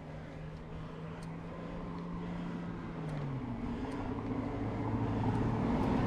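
A car engine approaching and growing steadily louder, its steady hum stepping down in pitch a little past halfway.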